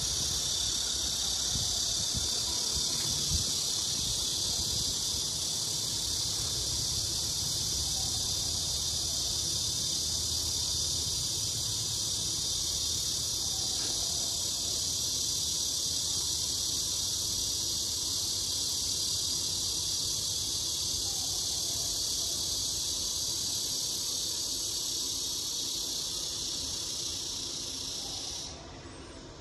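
Steady, high-pitched chorus of insects droning outdoors, which stops abruptly near the end.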